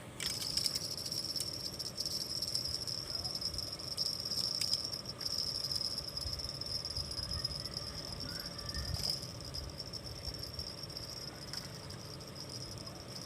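Insects chirring in a steady, high-pitched trill that holds throughout, over a low rumble.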